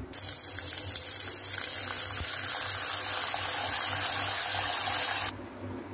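Water pouring steadily into a bowl of rice and urad dal to wash the grains, stopping suddenly about five seconds in.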